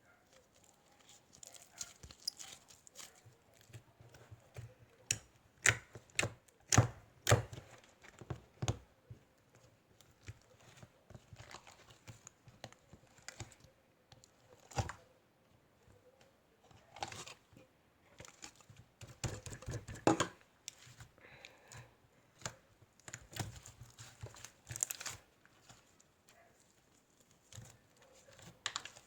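Irregular rustling and crinkling noises with sharp clicks and knocks, coming in clusters with quiet gaps between.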